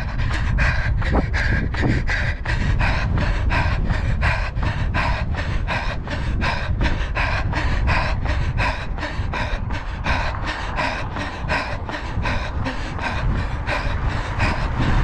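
A runner's hard panting and rhythmic footfalls at about three strides a second, the breathing of a fast tempo-pace run. A steady low rumble lies underneath.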